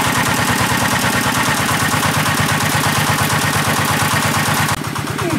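Engine of a large water pump running steadily with a rapid, even beat. Near the end the hiss suddenly drops away and a lower steady hum remains.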